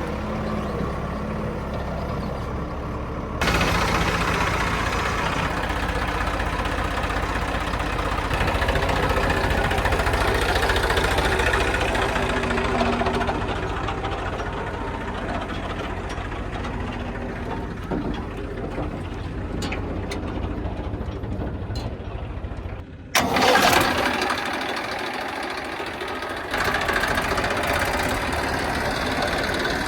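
Diesel engines of heavy farm and construction machinery running steadily. The sound changes abruptly twice, about three seconds in and again about two-thirds of the way through.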